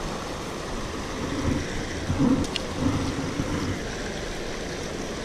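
Steady rush of water pouring over a concrete spillway weir into the pool below. A few louder low bumps and rumbles come and go about two to four seconds in.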